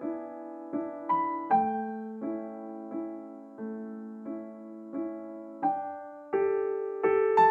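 Background piano music: unhurried notes and chords, each struck and then fading.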